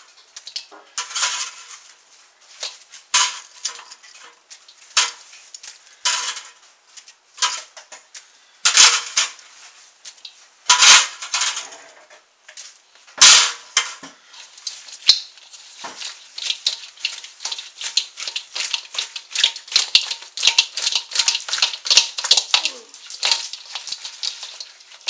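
A kitchen utensil clacking against a bowl as chicken wings are tossed in thick Sriracha-butter sauce. At first there are separate knocks every second or so, then quick, steady clattering over the last third.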